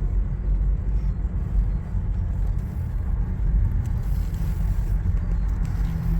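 Steady low rumble of a motor vehicle on the move, engine and road noise heard from inside the vehicle.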